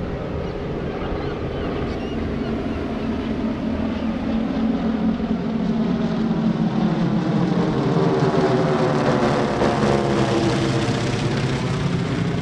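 Four SNJ Texans' Pratt & Whitney R-1340 nine-cylinder radial engines and propellers droning in close formation. The sound grows louder about halfway through as the formation comes overhead, and the pitch shifts as it passes.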